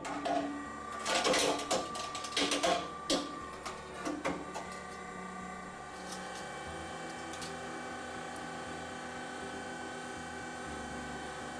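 SEM Model 0101 Sledgehammer hard drive crusher running a cycle: a run of sharp clicks and cracks over the first four seconds or so, then its motor running with a steady hum.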